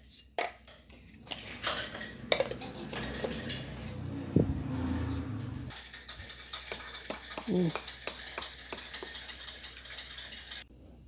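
A metal spoon stirring and scraping through dry cornstarch and baking powder in a stainless steel bowl, with light clinks of metal on metal. A low hum comes in for a second or two about halfway through.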